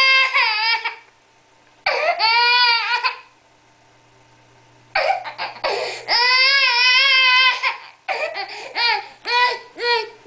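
Baby girl crying because she is tired: a few long wails, the longest about three seconds, then short, sobbing cries about twice a second near the end.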